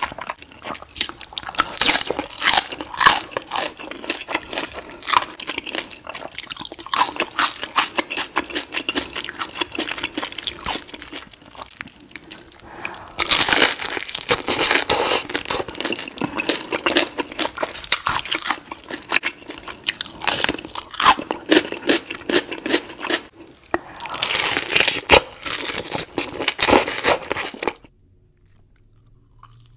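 Close-miked crunching and chewing of crispy fried birria tacos, bite after bite, with louder runs of crunching midway and near the end. It stops abruptly just before the end.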